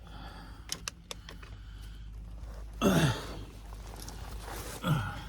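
A man grunting twice, short vocal sounds falling in pitch, about three and five seconds in, as he crawls into a crawlspace. There are a few light clicks near the start.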